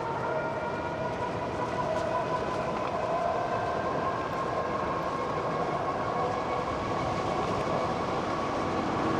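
Electric bike motor whining steadily under pedal assist, its several tones creeping slightly up in pitch, over the rough rumble of tyres on a dirt path and wind.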